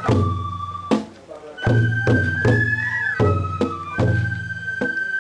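Traditional Japanese festival music: a high flute plays a slow melody of long held notes over repeated strikes of a deep drum, each strike ringing on low.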